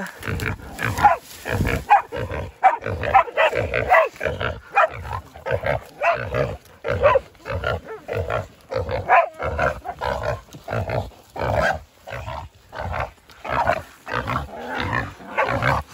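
Feral pig squealing in short, repeated cries, about two a second, while pig dogs hold it.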